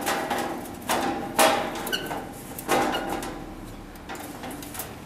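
Sheet-metal cover of a single-phase arc welder being fitted back onto its steel case: three metallic knocks and scrapes, the second ringing briefly, followed by fainter handling rattles.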